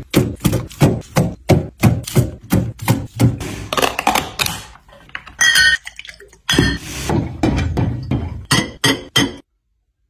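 Drinks being restocked by hand: a quick run of knocks and taps as juice cartons and bottles are set onto a fridge's metal wire shelves, then glass bottles clinking and ringing against each other. The sound stops suddenly near the end.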